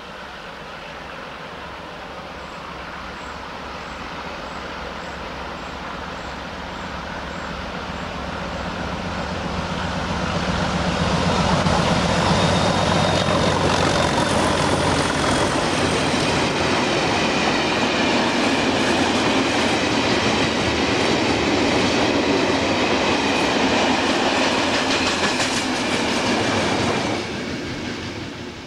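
Two Class 31 diesel locomotives hauling a freight train, their engine sound growing louder as they approach and pass about a third of the way in. The loaded wagons then rumble past with a clickety-clack and a thin high wheel squeal, and the sound drops away near the end.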